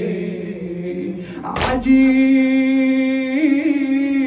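A male Shia eulogy reciter (radood) chanting a lament unaccompanied, drawing out long held notes. Between the notes comes one short sharp sound about a second and a half in. The following note wavers in pitch a little after three seconds.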